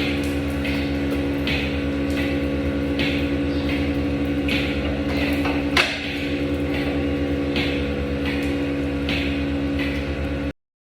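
Milking machine running: a steady hum from the vacuum plant with a short rhythmic hiss about every three-quarters of a second, typical of the pulsators, and one sharp click about six seconds in. The sound breaks off suddenly near the end.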